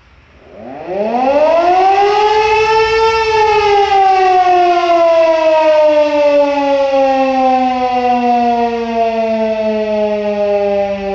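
Motor-driven siren sounding as a 5 o'clock time signal. It winds up from a low growl to its peak pitch in about three seconds, then slowly winds down, its pitch falling steadily.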